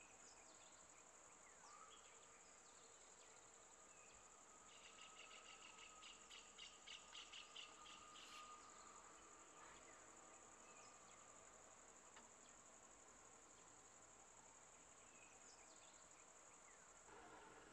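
Faint insect chorus: a steady high-pitched drone, joined about five seconds in by a run of rapid pulsing chirps that lasts some four seconds.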